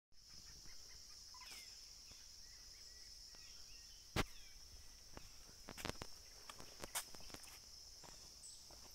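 A steady high-pitched drone of insects, with faint bird chirps in the first few seconds. A few sharp clicks stand out: one about four seconds in, then a couple more around six and seven seconds.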